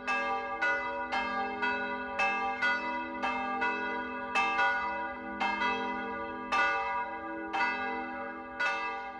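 Church bells ringing in the holy day (helgmålsringning), struck about twice a second, each stroke ringing on into the next.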